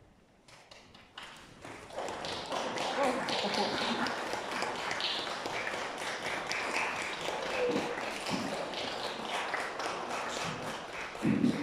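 Audience applauding, the clapping starting about a second in and quickly building to a steady level, with some voices mixed in and a single thump near the end.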